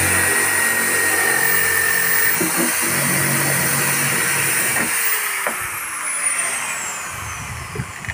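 JCB electric impact drill with a hole saw cutting through the wall of a plastic water tank, motor running steadily under load. About five seconds in the trigger is released and the motor winds down with falling pitch.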